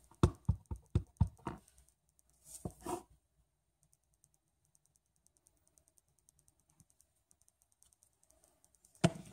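Clear acrylic stamp block tapped about six times in quick succession on an ink pad to ink the rubber stamp. About two and a half seconds in comes a short scuffing press as the block goes down on cardstock, and a single knock near the end.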